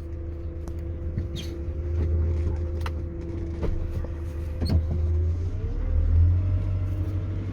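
GAZelle Next van's Evotech 2.7 engine running as the van drives off, its note rising about five and a half seconds in, with a few sharp knocks through the body. The knocking comes from a loose cab-to-frame mount with one bolt missing and two slack.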